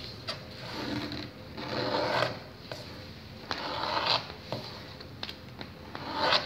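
A sheet of printer paper folded and creased by hand on a tabletop: a few rustling swishes as the hands slide and press along the folds, the longest about two seconds in and a short sharp one near the end, with light clicks of paper between.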